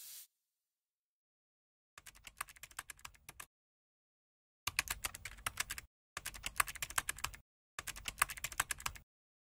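Computer keyboard typing sound effect: four bursts of rapid key clicks, each a second or so long, with dead silence between them.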